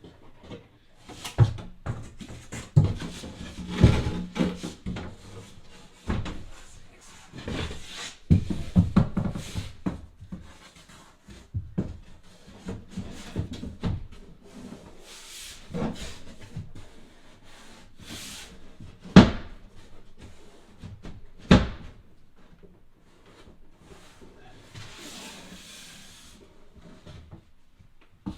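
Wooden panel and tools being handled: irregular knocks, bumps and rubbing, with two sharp knocks about two-thirds of the way through.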